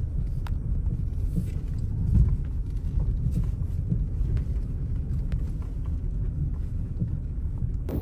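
Low steady rumble of a car driving on an unsealed gravel road, heard from inside the cabin, with scattered faint ticks.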